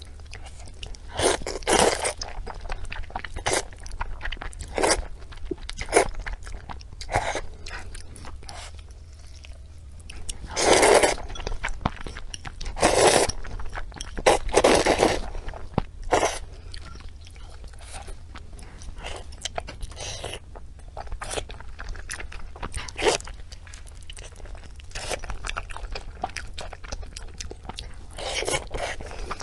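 Close-miked chewing and biting of pork intestines: a steady run of short, sharp mouth sounds with louder bursts every few seconds, over a faint low hum.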